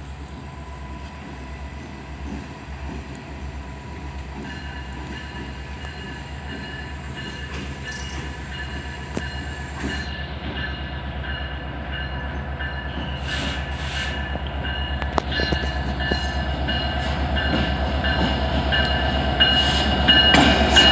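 Canadian Pacific diesel locomotive approaching at slow speed, its engine's low drone growing steadily louder as it nears. A steady, high ringing tone joins about four seconds in.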